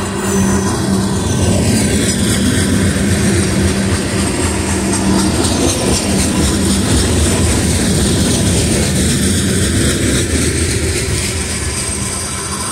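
Loaded coal hopper cars of a freight train rolling past: a steady rumble of steel wheels on the rails, with a faint steady hum and ringing over it.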